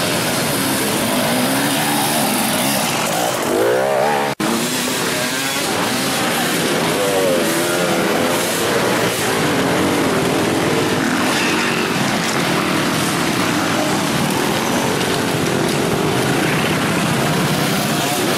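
Enduro dirt bike engines revving hard, one after another, pitch rising and falling as the throttle is worked, with a momentary break about four seconds in.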